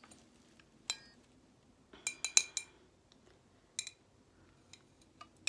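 Metal fork clinking against the inside of a glass jar of garlic-stuffed olives as it fishes for an olive: scattered light clinks with a short ring, including a quick cluster of several about two seconds in.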